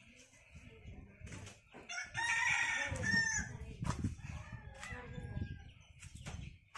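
A rooster crowing once, about two seconds in, lasting about a second and a half.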